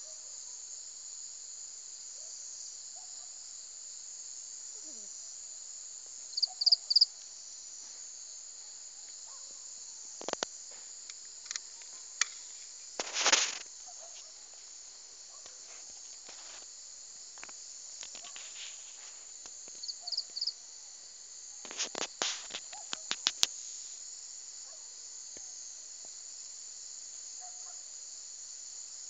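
Steady high-pitched insect chorus. Three short, loud high chirps come about six to seven seconds in, and scattered clicks and knocks follow near the middle and about three-quarters of the way through.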